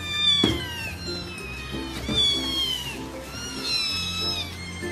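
A kitten meowing three times, each meow high-pitched, about a second long and falling in pitch, over background music.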